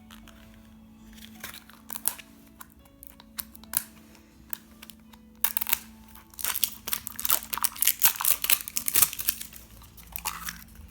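Plastic wrapper of a squishy toy crinkling and tearing as it is opened: scattered crackles at first, then dense, loud crinkling from about halfway through. Soft background music underneath.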